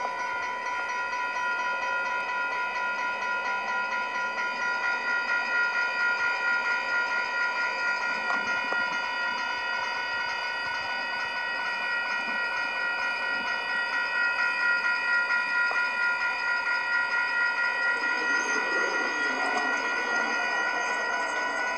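Railroad crossing warning bell ringing nonstop in a fast, even pulse, at a crossing that keeps malfunctioning, its gates going down and back up with the lights still flashing. A lower rushing noise joins near the end.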